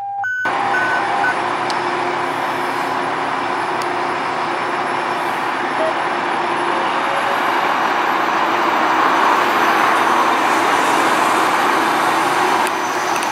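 A few short electronic beeps in the first second, then the steady running of a 2007 Spartan Gladiator fire engine as it idles and rolls out of the station bay, over a constant rushing noise that swells a little later on.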